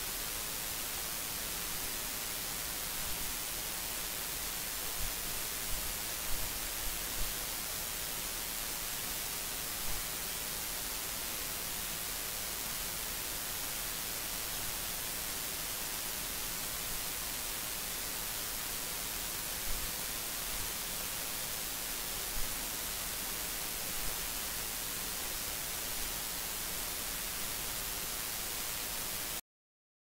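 Steady hiss of recording noise with no speech, broken by a few faint short pops now and then. It cuts off just before the end.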